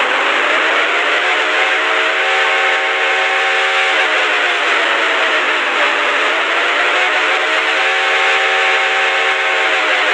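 Mock emergency-alert alarm: a siren-like tone over a heavy hiss, its pitch rising, holding, dipping about halfway through, then rising and holding again.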